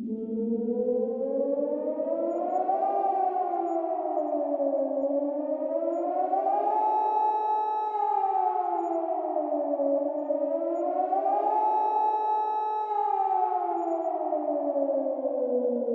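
Civil-defence warning siren wailing, its pitch rising and falling in slow waves and holding at the top twice.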